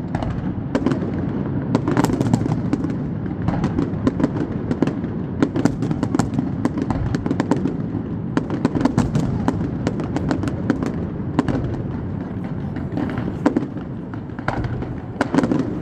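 Aerial fireworks display: a continuous barrage of bangs and crackling reports, irregular and often in quick clusters, over a steady rumble.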